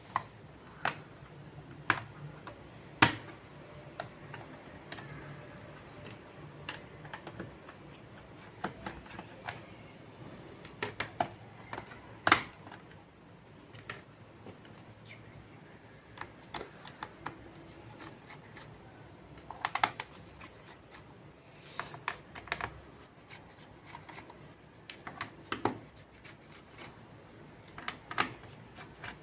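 Irregular sharp clicks and taps of hard plastic as an Acer laptop is handled, some louder knocks among lighter clicks.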